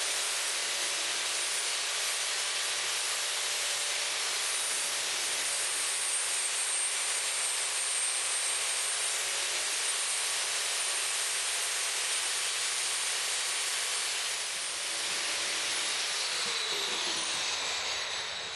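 Plasma cutter cutting steel plate: a steady, loud rush of air and arc hiss that eases off near the end, with a falling tone as it winds down.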